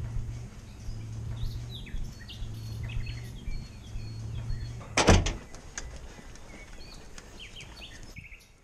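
Small birds chirping here and there, and about five seconds in a single loud knock from the wooden gate and its metal latch as it is opened. A low steady hum underneath stops just before the knock.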